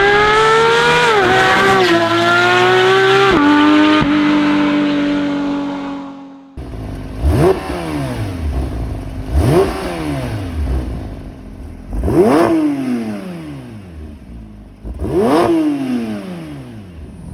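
Porsche 992 GT3's 4.0-litre flat-six through an iPE valvetronic stainless full exhaust. It runs at high revs with quick drops in pitch, as at upshifts, then fades away. After that come four sharp throttle blips, each rising fast and falling back, a few seconds apart.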